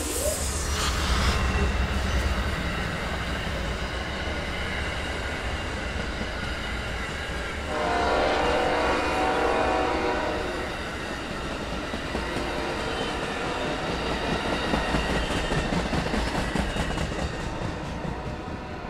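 Amtrak passenger train cars rolling past: a steady rumble and clickety-clack of wheels on rail that fades near the end as the last car goes by. The GE P40 locomotive's horn, now up the line, trails off at the very start and sounds again about eight seconds in for a couple of seconds.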